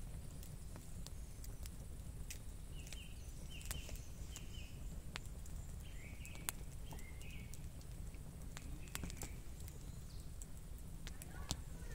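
Wood fire crackling with sharp, irregular pops over a low, steady rumble, while a small bird chirps in short calls now and then.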